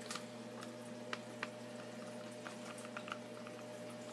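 Steady low electrical hum of powered-up shop equipment, with a fainter higher tone over it. A few light, scattered clicks and knocks come from the camera being handled as it is panned.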